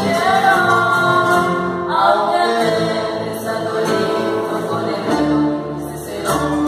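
A chilena played live on a harp, an acoustic guitar and an upright double bass, with several voices singing the melody together, a woman's voice among them. New sung phrases start about two seconds in and again near the end.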